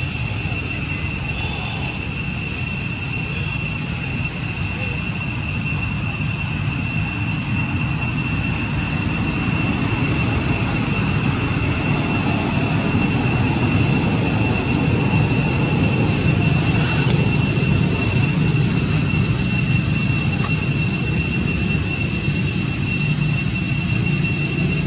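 Steady outdoor background noise: a low rumble with a constant high-pitched whine held on one pitch above it, unchanging throughout.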